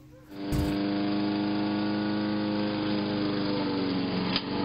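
Walk-behind gasoline lawn mower engine running steadily, coming in about half a second in. Its pitch sags slightly near the end, and there is one sharp click.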